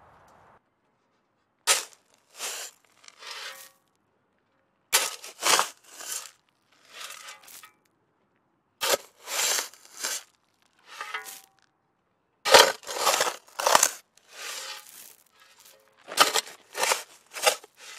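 Crunching, tearing strokes in grass and undergrowth, coming in groups of three or four about half a second apart with short silent pauses between the groups.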